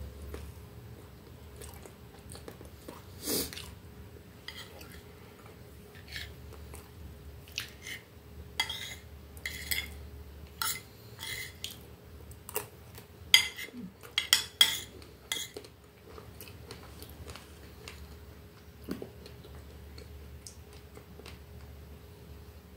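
Metal spoon clinking and scraping against a plate as cake is cut and scooped, with chewing in between. The clinks come as scattered sharp taps, bunched in the middle, where a few of the loudest come in quick succession.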